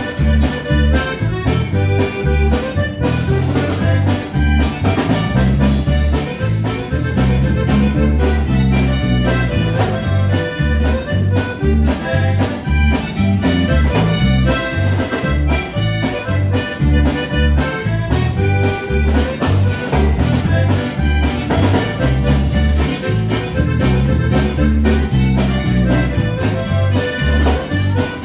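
Live Tejano conjunto band playing an instrumental piece: a button accordion carries the melody over guitar, bass and drums, with a steady beat.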